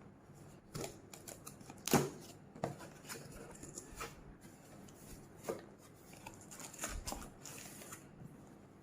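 Cardboard box of an angle grinder being opened and its packaging handled: scattered rustles, scrapes and light knocks, the sharpest about two seconds in.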